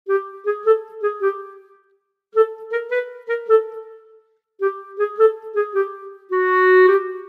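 Background music: a simple melody of short, steady notes in three brief phrases with short pauses between them.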